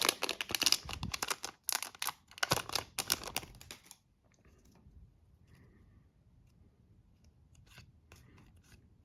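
A foil pack of hockey cards being opened: a rapid crackling and crinkling of the wrapper for about four seconds, then only faint rustles and ticks as the cards are handled.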